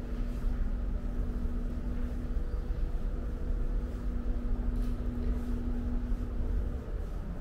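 Urban outdoor ambience: a low steady rumble with a steady hum over it. The hum drops out briefly about two and a half seconds in and stops near the end.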